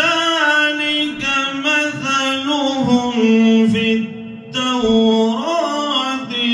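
A man's voice chanting an unaccompanied devotional recitation in long held, ornamented melodic phrases, with a brief pause for breath about four seconds in.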